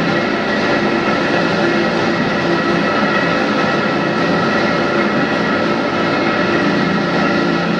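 Morrison Bridge's bascule lift machinery running as the drawbridge leaf rises: a loud, steady mechanical drone with several constant whining tones over it.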